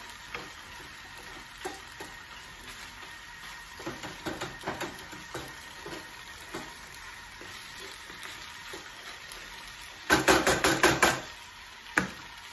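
Minced turkey and chicken with mushrooms sizzling in a frying pan, stirred with a wooden spatula that scrapes and taps the pan. About ten seconds in comes a quick run of about eight loud knocks, then one sharp click.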